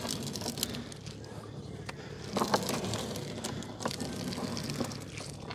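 Gill net being hauled over the side of a small boat by hand: irregular knocks, clicks and rattles of the wet net against the hull, over a low steady hum.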